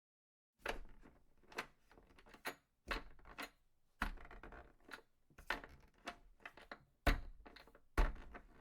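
A string of about a dozen irregular knocks and thuds, each with a short fading tail. The loudest two come about seven and eight seconds in.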